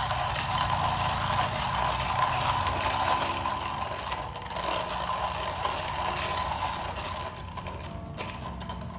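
Comandante C40 hand coffee grinder being cranked, its burrs crunching coffee beans at a coarse setting in a steady, continuous grind. The grind thins out and gets quieter near the end.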